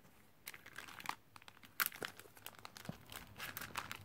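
Clear plastic packets of sticker sheets crinkling as they are handled and flipped through, in irregular crackles, the sharpest a little under two seconds in.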